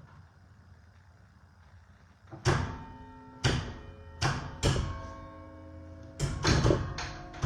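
Church tower bells struck one note at a time to begin a Christmas carol, starting about two and a half seconds in. Four strikes come at first, each ringing on under the next. A quicker run of notes follows near the end.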